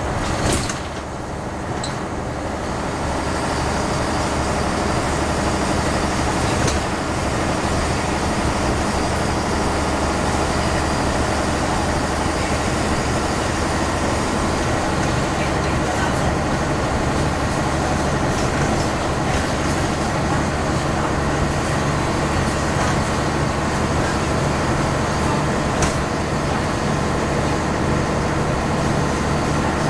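Diesel engine of a DAF MB 200 city bus with a manual Wilson gearbox, running under way; the sound builds over the first few seconds and then holds steady.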